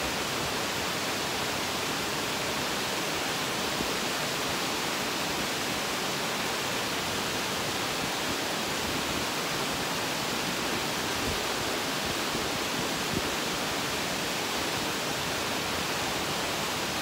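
Steady rush of water pouring over a small river dam: an even, unbroken hiss.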